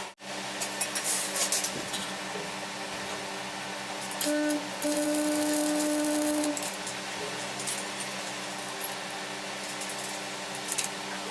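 Metalworking tool running in a workshop: an even rasping hiss with a crackle on top and a steady hum that drops out and comes back a few times.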